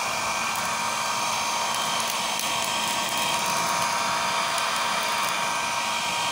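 Small electric fan running steadily and blowing air onto burning charcoal in a metal grill box, a motor whine over a rush of air, driving sparks up to bring the coals to glowing embers quickly.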